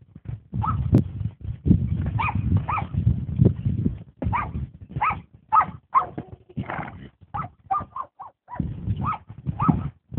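A mustang rolling on its back in loose arena sand, its body scraping and thudding in the dirt in uneven bursts. Over it runs a string of short, high-pitched calls, several a second in places, from about two seconds in.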